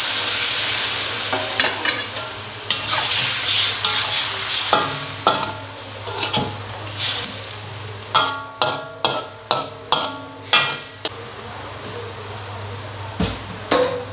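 Water poured into a hot wok of fried taro and spice paste sizzles loudly, the hiss dying away over the first few seconds. Then a spoon stirs the taro, knocking and ringing against the metal wok several times in quick succession.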